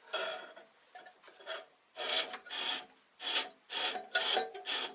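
Steel skew chisel bevel being rubbed over an abrasive in short, rasping back-and-forth strokes, about two a second. The strokes are working the bevel flat, taking off the black marker ink that shows where metal is being removed.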